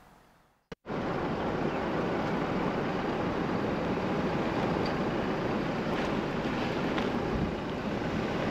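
Steady rush of wind and road noise from a car driving along a paved road, picked up by a vehicle-mounted action camera. It starts suddenly about a second in, right after a single click.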